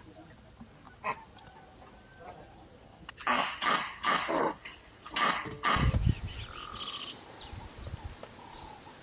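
Wild animal sounds: a steady high insect chirr with a run of short, sharp animal calls about three to six seconds in, then a different recording with low thumps and faint calls.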